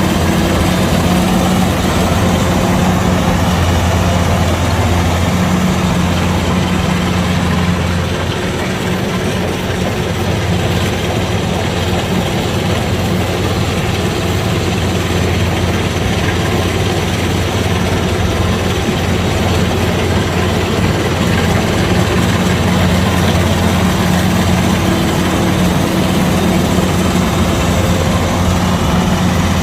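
Kubota DC-105X combine harvester's diesel engine running steadily with a low, even hum. It eases off slightly about eight seconds in, then comes back up.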